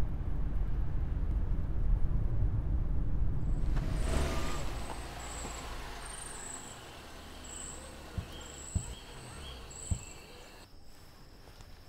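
Steady engine and road rumble inside a moving car's cabin, which gives way about four seconds in to quieter outdoor ambience with insects chirping in short repeated pulses. A few dull thumps come near the end, as the parked car's doors are opened.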